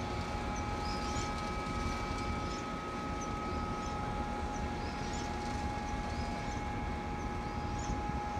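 Small birds chirping in short, repeated high phrases over a steady low rumble and hum that carries a few held whining tones from machinery.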